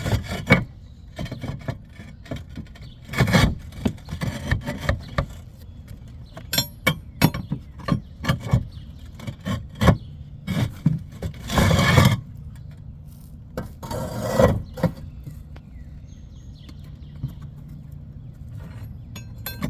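Roof tiles clinking, knocking and scraping as they are worked loose from their mortar bed: a run of sharp clinks and knocks with a few longer scrapes, the longest about twelve seconds in, then only a faint low hum from about sixteen seconds.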